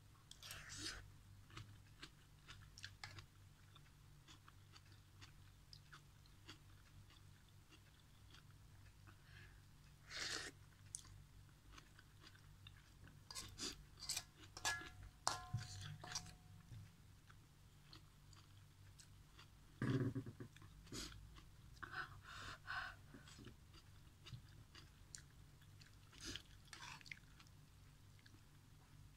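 Faint close-up chewing and biting of instant noodles and crunchy leafy vegetable stems, with scattered short clicks and crackles. A metal spoon now and then clinks against an aluminium wok, one clink ringing briefly. A faint steady low hum runs underneath.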